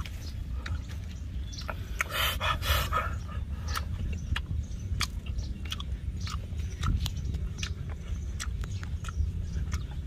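A person chewing and smacking their lips while eating grilled fish by hand, with many small wet mouth clicks. A louder crackling noise comes about two seconds in, over a steady low rumble.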